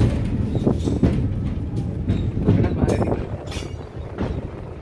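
Moving train carriage heard from inside: a steady rumble with scattered knocks and rattles.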